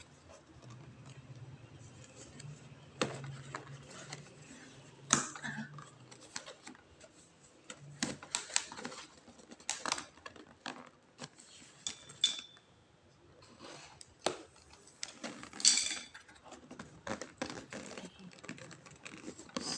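Irregular clicks, knocks and rustles of a robot vacuum cleaner's box and packaging being handled and opened by hand.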